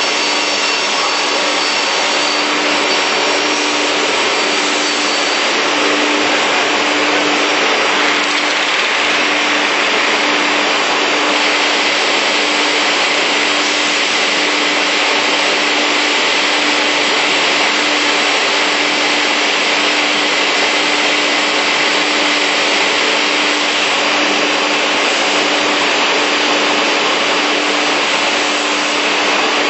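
Beam saw with 11 kW saw units running through its cutting cycle: a loud, steady whir with a steady low hum underneath, unchanging throughout.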